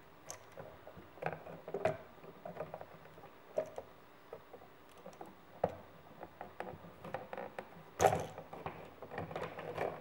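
Small clicks, taps and scrapes of a small screwdriver working in the release holes of a push-in (backstab) wall outlet as wires are freed and pulled out, with a louder knock about eight seconds in.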